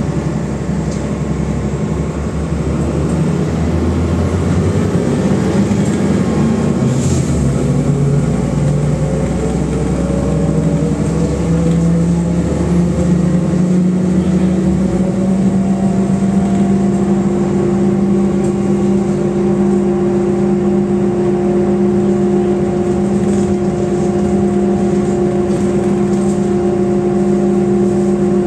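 MAZ-105 city bus heard from inside the passenger cabin as it accelerates. The engine and drivetrain whine climbs in pitch over the first half, then holds a steady tone at cruising speed over road rumble.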